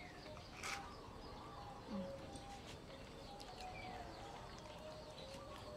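Faint animal calls: many short, wavering high notes, with a couple of soft clicks.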